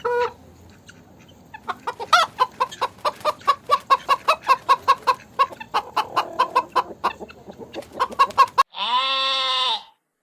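Chickens clucking in a quick run of short calls, about four a second, after a brief quiet start. Near the end a single long, loud animal call cuts in for about a second.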